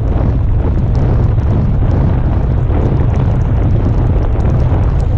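Strong wind buffeting the camera microphone, a steady heavy rumble, with light ticks of raindrops striking the camera.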